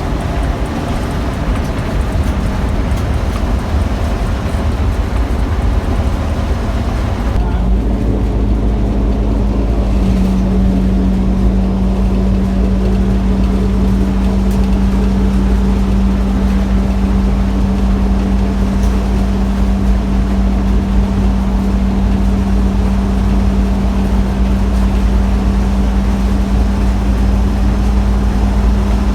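Inside a motorhome at road speed: a steady low drone of engine, drivetrain and tyres. About seven seconds in, the sound gets lower and heavier, and a steady hum comes in and holds. The rear axle has just been treated with a gear additive, and the owner finds the rear-end noise much reduced.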